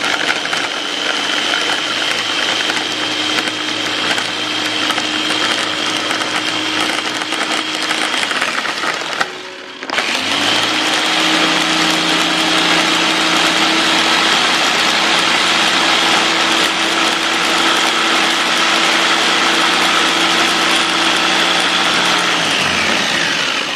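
Mitochiba CH100 electric mini chopper's motor running steadily, its blades grinding garlic, shallots, candlenuts and chilies with a little water into a spice paste. It stops briefly about nine seconds in, then runs again and winds down near the end.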